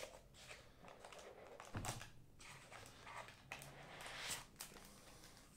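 Faint handling sounds of items being taken from a foam-lined carrying case: small clicks and rustles, with one soft knock about two seconds in.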